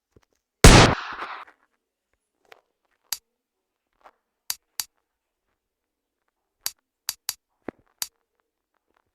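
A loud sharp bang with a short noisy tail, followed by about eight brief sharp pops or clicks at uneven intervals.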